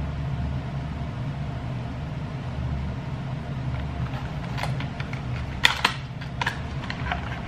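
A steady low hum, with rustling and sharp clicks from about four seconds in as a cardboard product box is opened and its contents handled, two clicks near the end louder than the rest.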